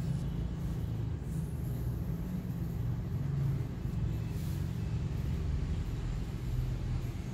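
A steady low rumble of background noise, with a faint pencil stroke scratching on paper about four seconds in.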